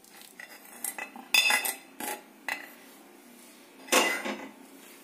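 Metal kitchenware clanking and scraping as a spoon scrapes cooked tamarind pulp out of a kadhai into a steel mesh strainer. There are several sharp clanks, the loudest about a second and a half in and about four seconds in.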